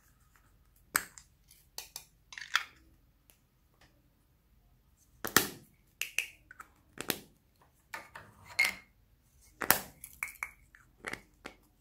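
Small plastic toy containers handled and opened: an irregular string of sharp plastic clicks and short rattles, with a few louder snaps in the middle and near the end.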